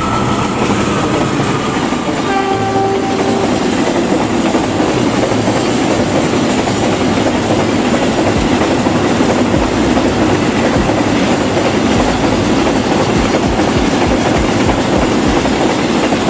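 Freight train of flat wagons rolling past behind a KAI CC206 diesel-electric locomotive: a steady rumble of wheels on rail with the clickety-clack of wheels over rail joints. A short horn blast sounds about two seconds in.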